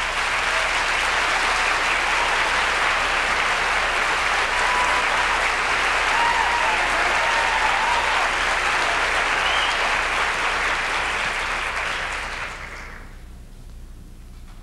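Audience applauding after a song, with a few faint whistles about halfway through, then the applause dies away about two seconds before the end.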